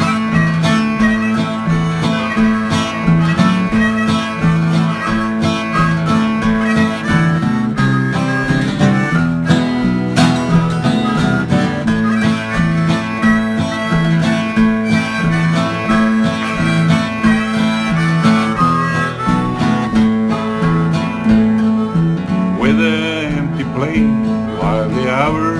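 Instrumental break of a song: acoustic guitar and bass guitar with harmonica.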